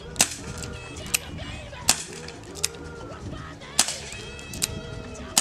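Four sharp shots from a Dan Wesson 6-inch airsoft revolver, roughly two seconds apart, with fainter clicks between them, over background music.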